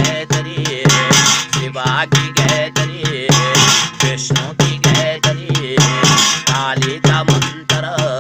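Garhwali jagar devotional song: two male voices singing over a small rope-laced double-headed drum and a metal plate played by hand on a metal pot. The drum and plate keep a quick, steady beat.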